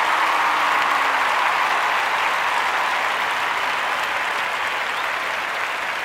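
Steady clapping and cheering from a group celebrating, easing off slightly toward the end.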